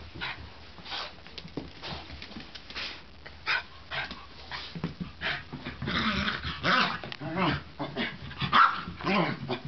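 Small dog growling and barking in rough play, with scuffling. The growls and barks come thicker and louder from about halfway through.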